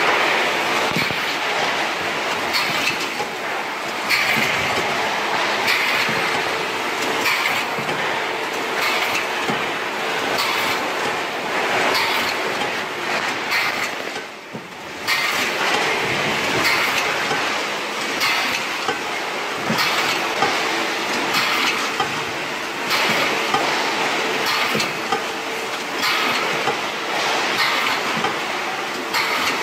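Fish processing machines and conveyors running, with a steady clattering rattle, frequent short knocks and a faint hum. The noise dips briefly about halfway through.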